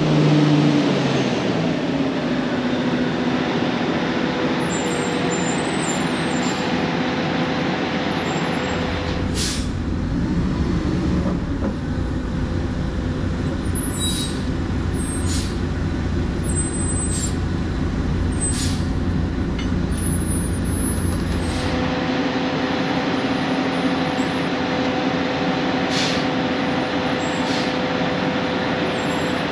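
Oshkosh Striker 1500 airport crash fire truck's diesel engine running steadily as it is driven slowly up onto a lowboy trailer. A heavier low rumble comes in from about nine to twenty-two seconds in, and a few short sharp clicks or hisses are heard over it.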